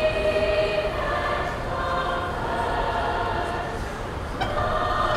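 Mixed high school choir singing in held, sustained chords, with a new phrase starting near the end.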